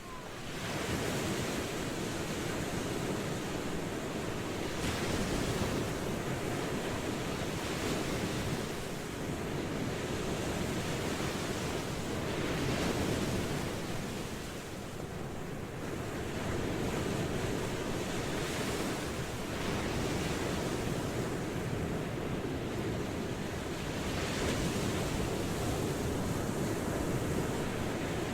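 Ocean waves washing in: a steady surf hiss that swells and eases, with a few brief lulls between swells.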